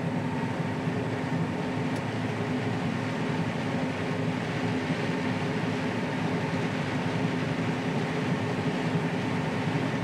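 Combine harvester running under load while harvesting corn, heard from inside the cab: a steady mechanical drone with a constant hum.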